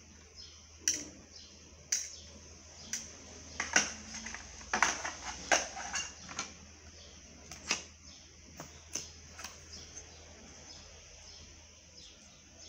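Clicks and light knocks of small plastic and metal phone parts and tools being handled and set down on a workbench, thickest in the middle and thinning out towards the end, over a low steady hum.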